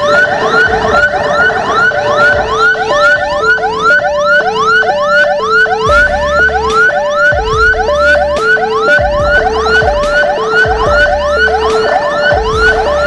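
Electronic emergency sirens wailing together: a fast repeating rising whoop, about three sweeps a second, over an alternating high–low two-tone. From about halfway there is also an intermittent low rumble.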